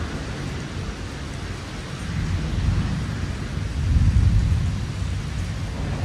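Rolling thunder rumbling, swelling to its loudest about four seconds in, over a steady hiss of rain.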